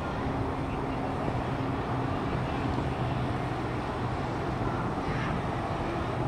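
Steady outdoor city background noise: a constant rumble of distant traffic with a low, even engine hum.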